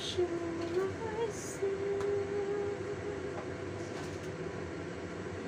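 Lidded wok simmering on a lit gas burner: a steady noise with a constant hum, and a few wavering held tones over it in the first half.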